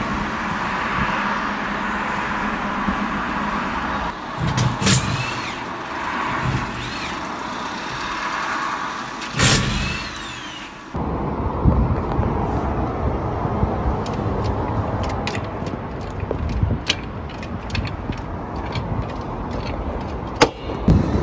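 Steady vehicle and road noise heard from inside a stationary car, with a couple of louder swells. After a sudden cut, outdoor sound from a roadside wheel change, with many short clicks and knocks from tools and wheel work.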